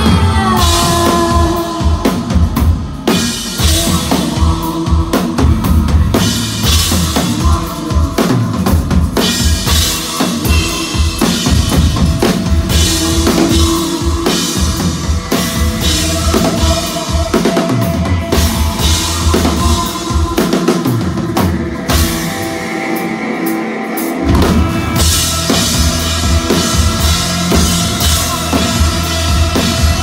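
Loud live rock band playing electric guitar, bass and a drum kit, with the drums to the fore. The heavy low end drops out for about two seconds a little past two-thirds of the way through, then comes back in.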